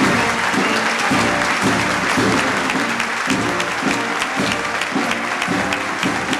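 A live band playing a tune with a steady beat while a standing crowd applauds over it.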